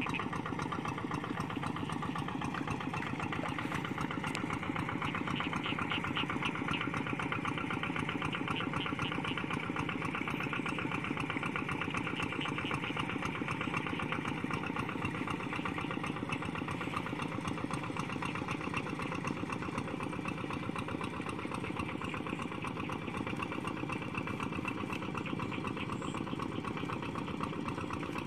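Single-cylinder diesel engine of a two-wheel hand tractor running steadily under load as it pulls through flooded paddy mud.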